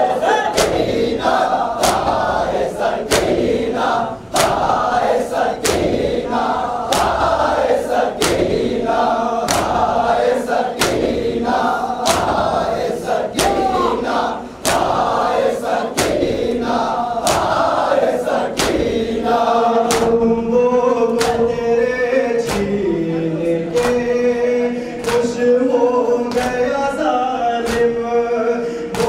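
Shia mourners' matam: a crowd of men chanting a noha together while slapping their chests in a steady, even beat of loud slaps. After about 20 seconds a single male reciter's voice leads the lament through a microphone over the continuing slaps.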